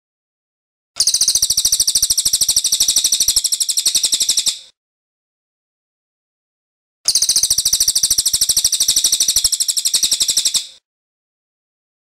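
A cililin (racket-tailed treepie) gives two long, loud rolling trills of rapid, evenly repeated high notes, each lasting about three and a half seconds, with a pause between.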